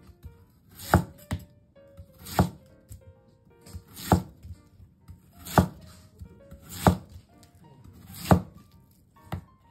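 Kitchen knife slicing a peeled yam into rounds on a wooden cutting board: six firm knocks of the blade through the yam onto the board, about one every second and a half, with a couple of lighter taps between.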